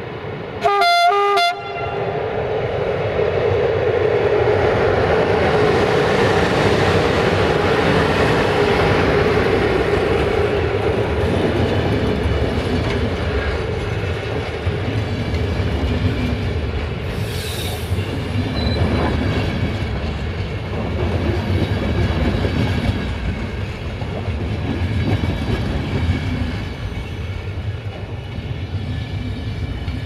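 A short blast on the horn of a CFR Class 477 'Delfinul' electric locomotive about a second in, then the locomotive and its passenger coaches rolling past, wheels rumbling and clattering on the track, slowly fading.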